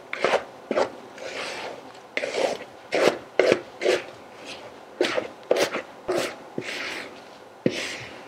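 A spatula scraping thick chocolate cake batter out of a mixing bowl as it pours into a cake tin: a dozen or so short, irregular scrapes and knocks with softer rasping between them.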